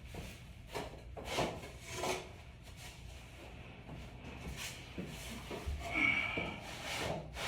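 Particleboard slats sliding and rubbing against each other as they are pushed together tongue-and-groove on the floor, with a few short scrapes and knocks.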